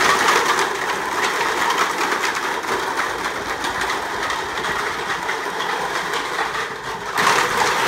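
Hundreds of stacked clear plastic cups clattering continuously as the cup walls topple and spill onto each other, the clatter getting louder near the end.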